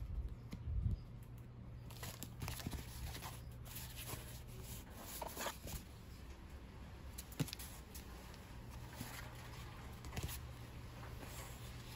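Cardboard mailer being handled and opened by hand: scattered rustling, light taps and crinkling of cardboard, packing tape and bubble wrap, with a soft thump about a second in.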